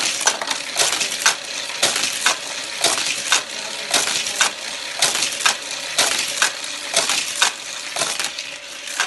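Hot Wheels die-cast cars clattering around a plastic track driven by a battery-powered booster, with a sharp clack about twice a second as cars hit the track and pass through the booster, over a steady whirring rattle.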